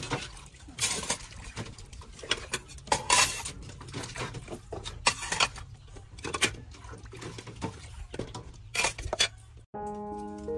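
Plates, bowls and metal pots clinking and clattering as they are washed and stacked in basins, a run of irregular knocks and clinks. About three-quarters of a second before the end the clatter cuts off and music begins.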